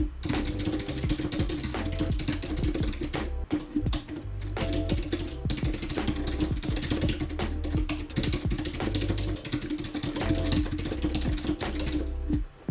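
Rapid touch-typing keystrokes on a computer keyboard, heard over background music with a repeating bass line.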